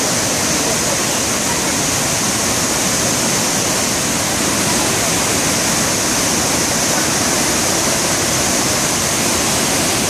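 Athirappilly Falls on the Chalakudy River in flood, swollen by heavy rain: a loud, steady rush of churning white water.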